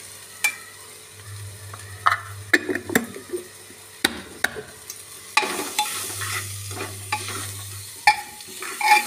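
A metal ladle scraping and knocking irregularly against the inside of an aluminium pressure cooker as a spiced onion-tomato masala is stirred and fried, with oil sizzling under it. The masala is being roasted briefly so the turmeric and chilli lose their raw taste.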